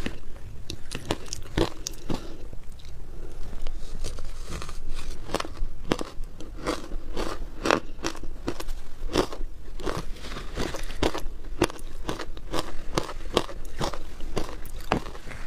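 Shaved ice being bitten and chewed: a steady run of crisp crunches, about two or three a second.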